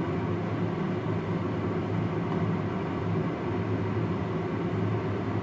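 A steady low mechanical hum with an even rushing noise over it, unchanging throughout.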